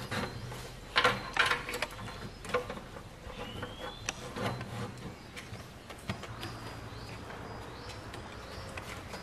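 Handling noise of an MPPT controller circuit board and its cables being fitted into a metal inverter chassis: scattered clicks, knocks and rubbing, the loudest about a second in.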